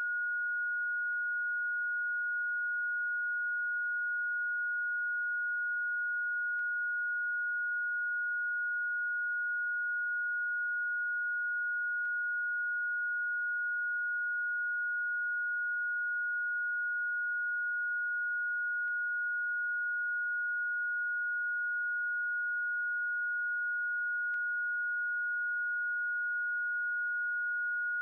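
A single steady, high-pitched pure electronic sine tone held without change: a Rife frequency played as a bioresonance treatment tone.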